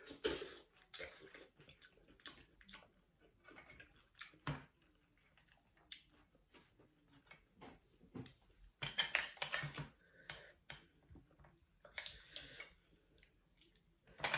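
Close-up eating sounds of raw oysters: wet slurping and chewing, with light clicks of chopsticks and a metal spoon against oyster shells and the sauce bowl. The loudest wet bursts come right at the start, around nine seconds in and around twelve seconds in.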